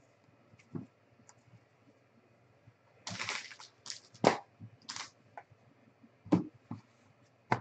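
A stack of trading cards handled by hand: a short rustle as the cards are thumbed through about three seconds in, then a few sharp clicks and knocks, the loudest a little past four seconds.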